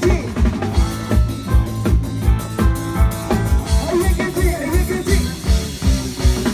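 Loud live band music from a Thai parade sound truck band (rot hae), with a heavy kick drum beating about two to three times a second over a steady bass line and melody.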